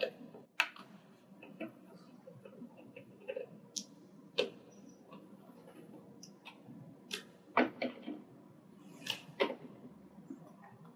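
Java sparrows moving about at close range: irregular sharp ticks and taps from beaks and feet, a few every couple of seconds.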